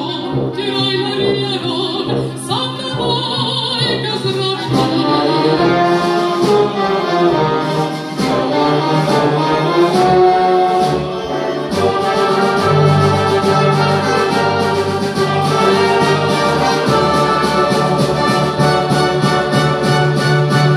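Live wind band playing, brass to the fore, with sharp percussion hits coming in regularly from about five seconds in and a heavy bass line entering about halfway through.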